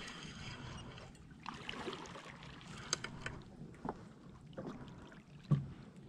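Water splashing and sloshing as a hooked toadfish is reeled up to the side of a small boat, with scattered clicks and ticks from the spinning reel, rod and line handling. A single louder dull knock comes about five and a half seconds in.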